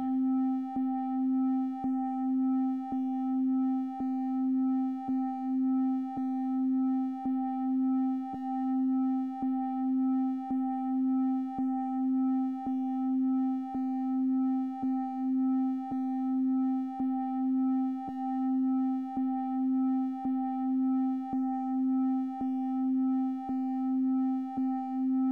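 Synthesized electronic tone: a steady low hum with fainter higher overtones, swelling in loudness about once a second, with a soft click on each pulse. It is a 1 Hz pulsing pattern.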